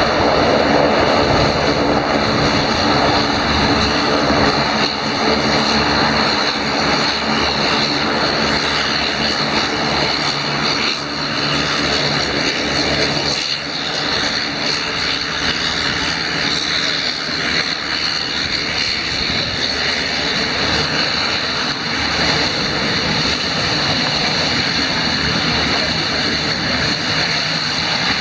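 De Havilland Otter floatplane's engine and propeller droning steadily as the plane taxis on the water.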